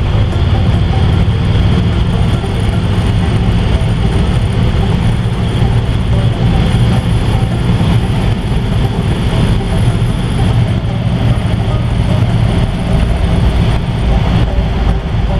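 A 1955 Ford's 292 Y-block V8 and road noise while driving at a steady speed, loud and even. The exhaust leak has just been repaired, and the exhaust runs quiet with no leak.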